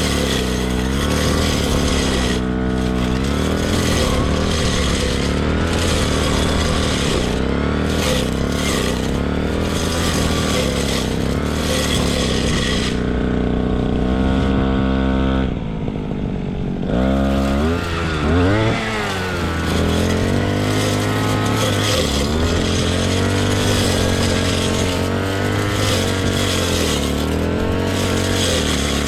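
Two-stroke brush cutter engine running at cutting speed; about halfway through the throttle is eased off and the engine drops toward idle, then it revs back up and runs on steadily.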